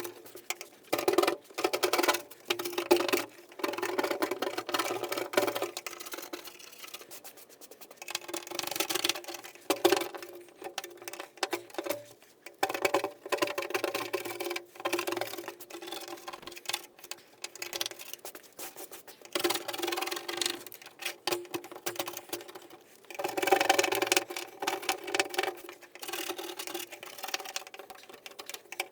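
Irregular scraping, tapping and clattering of hand work on a car chassis, in uneven bursts with short pauses.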